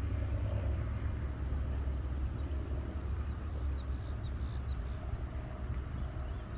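Wind buffeting the microphone: a steady low rumble that rises and falls slightly.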